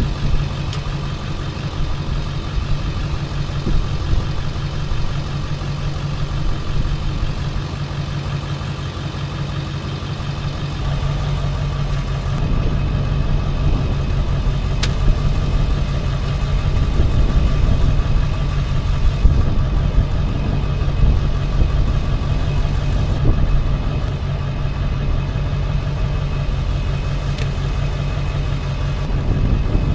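A steady engine hum.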